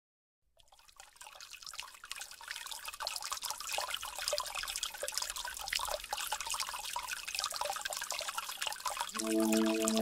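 Trickling water with many fine drips, fading in over the first few seconds. About nine seconds in, a sustained chord of steady musical tones comes in over the water.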